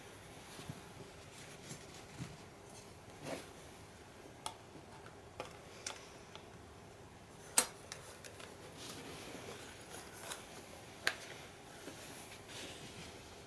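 Small clicks and taps of a WWI Prussian M1915 pickelhaube and its metal fittings being handled and fitted back together, scattered and irregular, with two sharper clicks, one a little past halfway and one about four-fifths of the way through.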